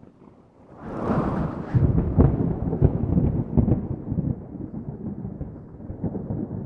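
Thunder rumbling and crackling. It swells about a second in, then rolls on more softly.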